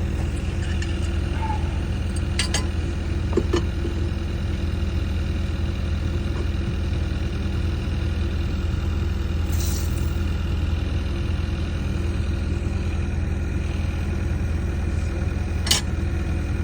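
An engine idling steadily, with a few sharp metallic clinks: a pair close together a few seconds in and one near the end.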